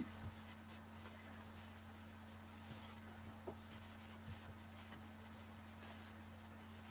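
Near silence: room tone with a faint steady electrical hum and a few soft ticks.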